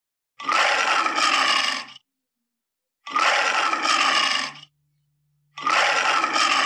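Lion roaring, three roars of about a second and a half each, with short silences between them; the last is cut off near the end.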